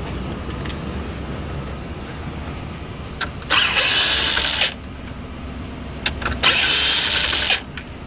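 Cordless power driver spinning out two 7mm bolts from the top of a dash trim bezel: two runs of about a second each, a few seconds apart, each preceded by a few light taps as the socket is seated.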